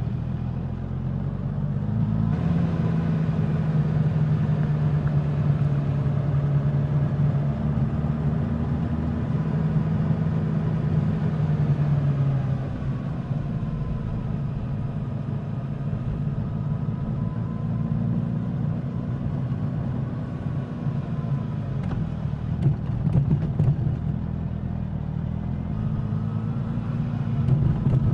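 Suzuki GSX-S1000's inline-four engine and exhaust running under way. The engine note steps up and gets louder about two seconds in, falls in pitch partway through, then picks up again.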